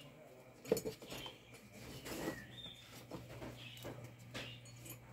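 Light clicks and knocks of hands working on a motor's wiring, the sharpest knock about a second in, over a low steady hum. Faint bird chirps are heard now and then.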